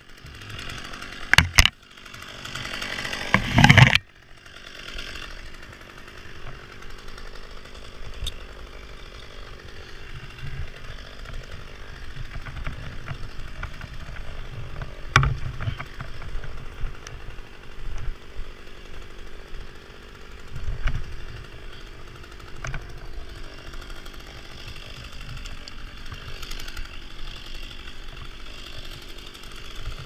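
Chainsaw running at high revs in loud spurts for about four seconds, with a short dip near two seconds, then cutting off suddenly. After that, a quieter low rumble with a few sharp clicks and knocks as climbing rope and hardware are handled.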